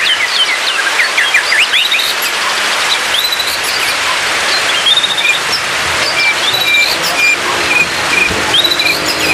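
White-rumped shama singing varied whistled phrases: quick falling notes at first, rising whistles about two seconds in, then a short note repeated about twice a second through the second half. Under it runs a steady hiss of rain.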